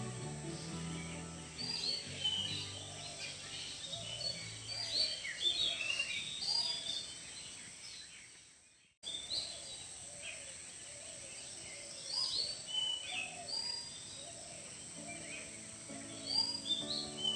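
Many small birds chirping and twittering in trees, over soft background music with low held notes at the start and near the end. The sound fades out about eight seconds in and cuts back in at nine.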